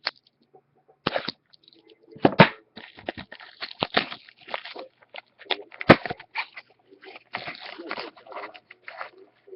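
A sealed trading-card mini box and its wrapping being torn open and handled: irregular crinkling and crackling, with a few sharper snaps, the loudest about two and a half seconds in and about six seconds in.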